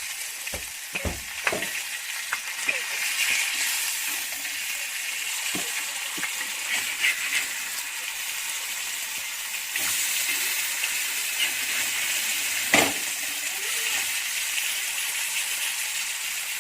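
Fish pieces frying in hot oil in a pan, a steady sizzle, with a few sharp knocks, the loudest about thirteen seconds in.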